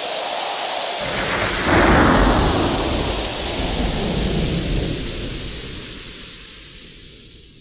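Audience applauding after a live song, with a low rumble that swells in about a second in; the sound fades out over the last few seconds.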